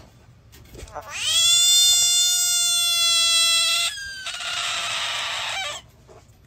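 Bullfrog's distress scream: starting about a second in, one loud, steady, high cry held for about three seconds, then after a short break a harsher, hissing scream of about a second and a half, made with the mouth gaping open. It is a defensive alarm call, given here at a dog right above it.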